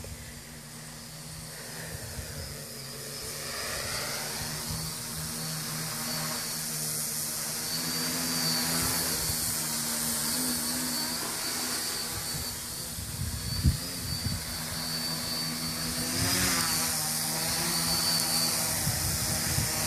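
V-tail quadcopter's electric motors and propellers buzzing in flight, growing louder as it comes closer, with the pitch wavering as the throttle changes near the end. A single brief knock about two-thirds of the way through.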